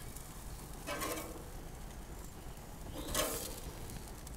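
Metal spatula scraping on a gas grill's grates twice as grilled turkey burger patties are lifted off, over a low steady hum.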